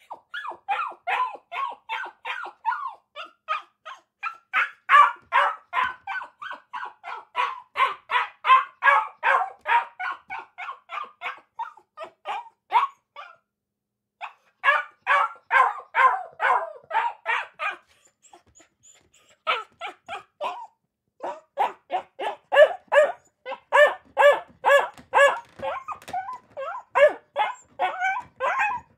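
Dog barking in quick, repeated barks, about four a second. There are two short pauses near the middle.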